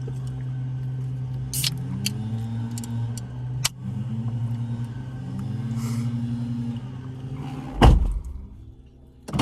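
Car engine running, heard from inside the car: a steady low hum whose pitch rises and falls several times, with scattered sharp clicks and a loud thump about eight seconds in.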